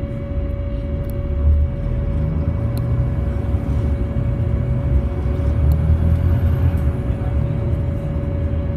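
Volvo B7TL double-decker bus running, a low engine and road rumble that swells and eases, with a steady whining tone held above it: the odd noise, which the uploader has never heard from this type of bus and cannot identify.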